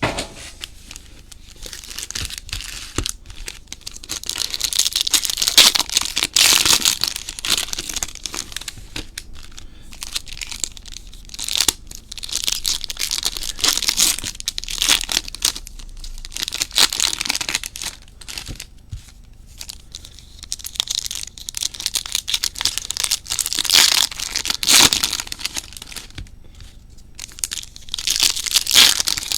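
Trading card pack wrappers being torn open and crinkled by hand, in irregular bursts of tearing and rustling.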